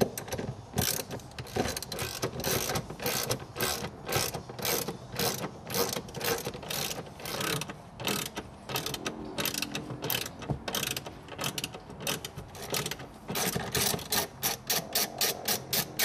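Hand ratchet clicking as it backs out the transmission tunnel cover bolts, about three clicks a second and quickening near the end.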